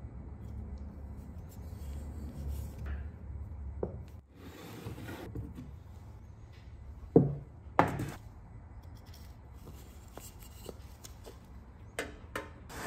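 Handling sounds of a hollow wooden dumbbell grip and its steel fittings. Two sharp knocks a little over half a second apart come midway, and a couple of light clicks near the end as a bolt is fitted at a tin box.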